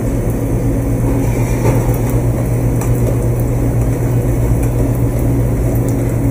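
Steady hum of a commercial kitchen's exhaust hood fan and gas range, with a few light clinks of a utensil stirring polenta in a saucepan.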